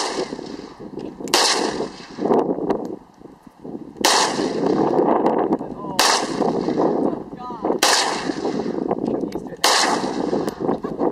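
SKS semi-automatic rifle firing six shots, spaced about one and a half to three seconds apart. Each crack is followed by a long echo that fades slowly.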